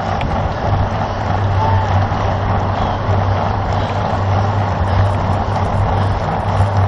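Steady rush of wind and tyre noise from a road bicycle ridden at race speed, even throughout.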